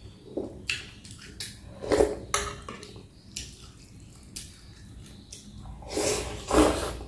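Close-miked eating: chopsticks and a fork clicking against a glass bowl as rice vermicelli noodles are lifted, then a louder stretch of noodles being slurped and chewed near the end.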